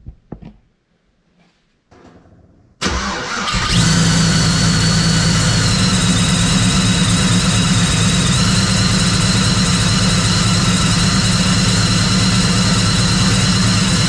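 Procharger-supercharged V8 in a Chevrolet Trailblazer cranking briefly, then catching about three seconds in and settling into a steady, loud idle. A high, steady whistle from the freshly rebuilt Procharger runs over the engine, loud because its inlet is open with no intercooler piping fitted yet.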